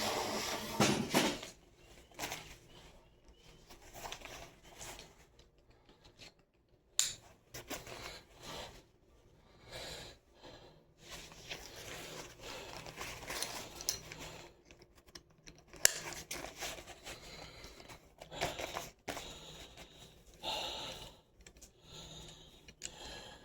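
Nylon chest rig being put on and adjusted: fabric and webbing straps rustling and scraping in irregular bursts, with a few sharp clicks.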